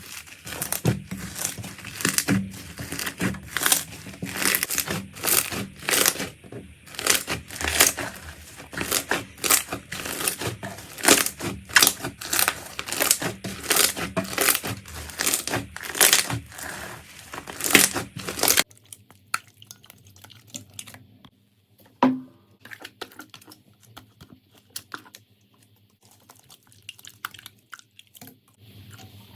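Slime being pressed and worked by hand, giving dense, rapid crackling and popping. About 18 seconds in it cuts to a much quieter stretch of sparse soft clicks, with one sharper click a few seconds later.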